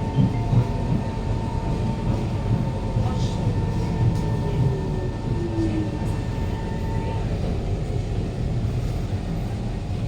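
Kawasaki C151 metro car's GTO-VVVF traction inverter and motors whining down in pitch as the train brakes into a station, over the steady rumble of the carriage; the whine fades out about six seconds in as the train comes to a stop.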